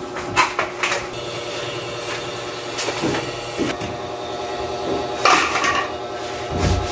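A cloth rubbing across PVC ceiling panels to wipe off dust, heard as a few short swishing strokes, the longest about five seconds in. A steady machine hum runs underneath.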